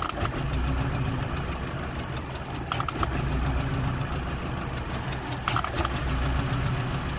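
2005 VW Golf Mk5 1.6 BGU petrol engine idling roughly and stuttering, its speed wavering unevenly, with the heater off. A short triple click repeats about every three seconds. The owner suspects too much air getting into the system.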